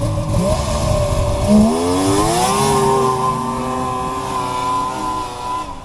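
Polaris XLT 600 triple snowmobile's three-cylinder two-stroke engine at full throttle on a launch. The revs climb sharply about a second and a half in, then hold high and steady with no bog, while the track spins on loose snow.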